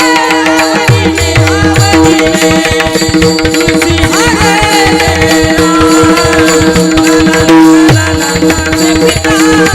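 Marathi Warkari abhang sung in devotional style: a singer's voice with gliding ornaments over a steady held drone and a running pattern of hand-drum beats.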